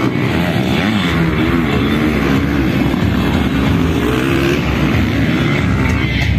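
Motocross bike engines revving up and down repeatedly as the bikes race around a dirt track.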